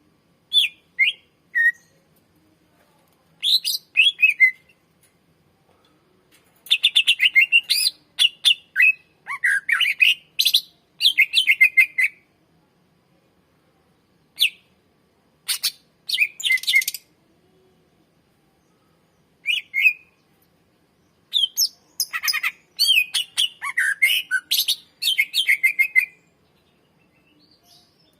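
Green leafbird (cucak ijo) singing: bouts of quick sliding notes and rapid chattering trills, separated by short pauses.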